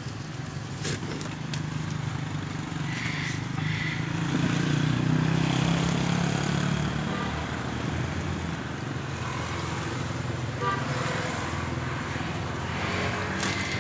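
A motor engine running with a steady low hum that grows louder for a few seconds around the middle.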